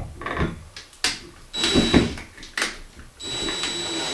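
A plastic shower-valve handle clicks and knocks as it is pushed onto the cartridge stem. About three seconds in, a cordless drill-driver starts running steadily with a high whine, driving in the handle's retaining screw.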